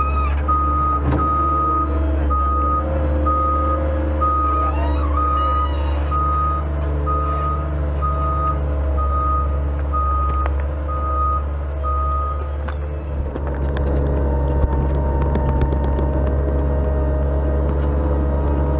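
Tracked skid-steer loader's engine running steadily while its reversing alarm beeps about once a second, a dozen or so beeps on one pitch; the beeping stops about two-thirds of the way through and the engine keeps running.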